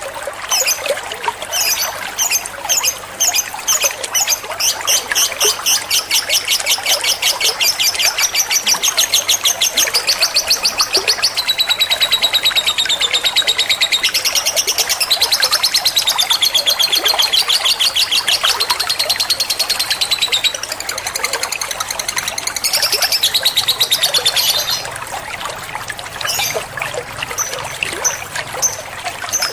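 Lovebird chattering in one long, fast run of high, evenly repeated notes that steps up and down in pitch, breaking into scattered chirps for the last few seconds.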